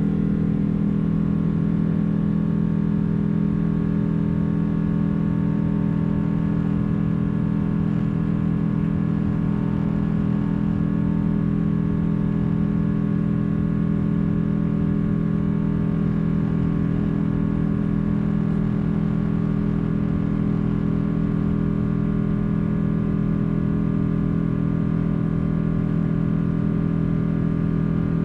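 Steady drone of a Boeing 777-200's jet engines heard inside the passenger cabin, a constant low hum with an even hiss that does not rise or fall.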